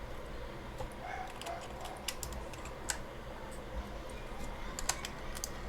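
Plastic keycaps being pressed onto a computer keyboard's key switches, giving irregular sharp clicks, with a louder click near the end.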